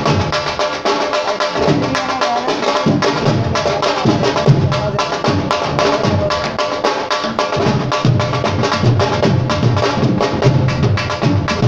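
Live instrumental music: fast, dense hand-drum playing over a steady sustained melodic drone.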